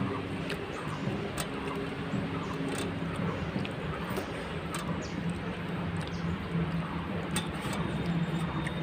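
Hand-eating sounds: scattered light clicks and scrapes of fingers and rings on steel plates as rice is scooped and mixed. These sit over a steady low hum and background noise.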